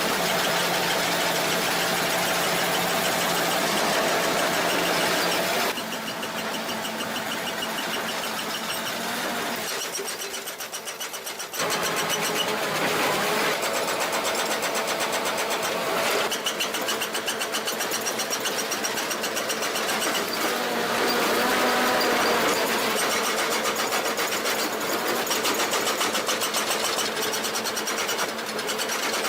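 Machinery running with a fast, even clatter. The sound changes abruptly several times, as stretches of different machine noise are cut together.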